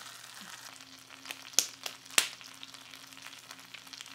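A few sharp clicks and taps of metal kitchen tongs on a cast iron skillet as a piece of chicken is lifted, over a faint steady hum.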